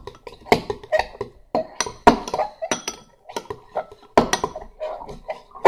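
Metal spoon clinking and scraping against a ceramic bowl in quick, irregular strokes while stirring a thick, wet mixture of powder and water.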